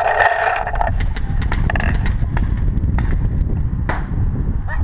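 Steady low rumble of wind and handling noise on a gun-mounted action camera, with a brief pitched call in the first second. Scattered sharp clicks and knocks of gear run through it as the player moves, with one sharper crack near the end.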